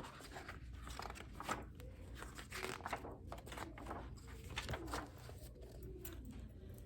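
Faint rustling and scattered light taps of paper being handled, as a picture book is opened and its pages turned.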